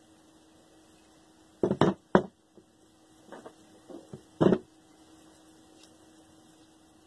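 Several knocks and clunks from a hot-water heating circulator pump's housing and impeller assembly being handled on a workbench: two loud ones about two seconds in, a few softer taps, and another loud one a little past the middle, over a faint steady hum.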